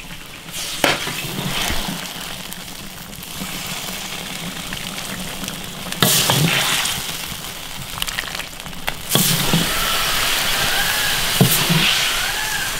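Spicy bullfrog and fish-head stew sizzling and bubbling in an iron wok, with a few sharp clinks of the ladle against the metal.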